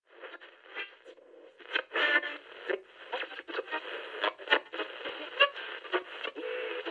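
Crackling radio static with many sharp clicks, heard through a narrow, tinny radio band, with a brief low tone near the end before it cuts off.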